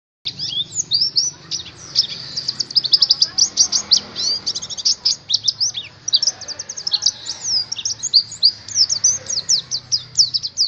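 White-eye (pleci) song: a rapid, unbroken string of high, thin chirps and quick downward-sweeping whistles, starting just after the beginning, over a faint low hum. It is a lure recording of the kind played to set caged white-eyes singing.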